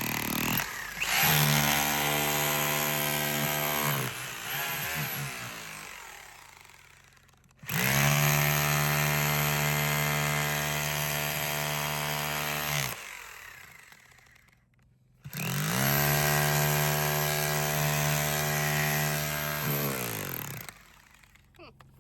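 Gas-powered post hole auger's small engine throttled up three times, running steadily at high speed for a few seconds each time and slowing down in between, as the auger bores a post hole.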